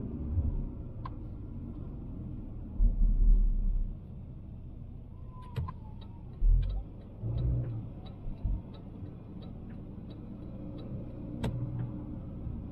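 Citroën Xantia driving slowly through city streets, heard from inside the cabin: a steady low engine and road rumble with a few heavier low thumps. A regular ticking, about three a second, runs through the second half.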